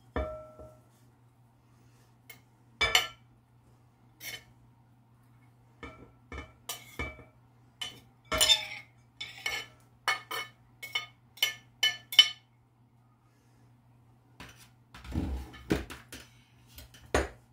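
A chef's knife tapping and scraping on a ceramic plate as chopped vegetables are pushed off it into a glass bowl: a run of sharp clinks, thickest in the middle. Near the end the plate and knife are set down on the wooden counter with a scrape and a knock.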